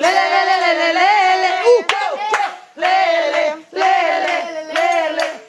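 A group of people singing a pagode love song together loudly and without instruments, in phrases broken by short pauses. A few sharp hand claps fall between the phrases.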